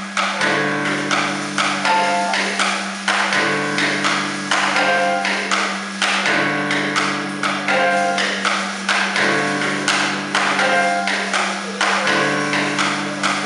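Live experimental ensemble music: a rapid stream of percussive taps and strikes over a looping pattern of sustained low notes that shifts about every three seconds.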